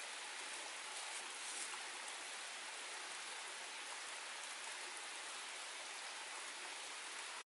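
Small forest stream running over rocks, a steady rush of water that cuts off suddenly just before the end.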